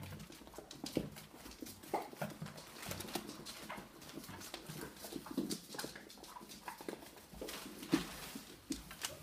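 Puppies playing together: irregular clicks, taps and scrabbling of small paws and claws, with a few brief dog whimpers and growls.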